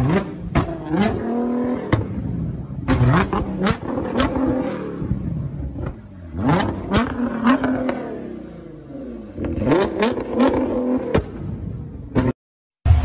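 Tuned Nissan GT-R R35's twin-turbo V6 revved in repeated blips, each rising and falling in pitch, with many sharp cracking exhaust pops: unburnt fuel igniting in the exhaust and shooting flames. It cuts off suddenly near the end.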